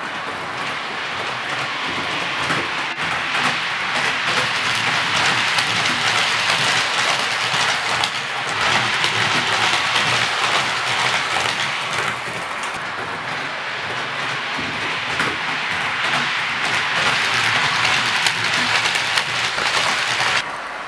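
OO gauge model trains running on the track: a steady rattle of small wheels over the rails. It grows louder as a train passes close, eases about twelve seconds in, then builds again.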